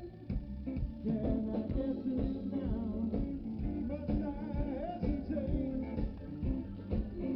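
Live band playing a blues-rock number: electric guitar over bass and a steady drum beat, with a melody line that bends in pitch.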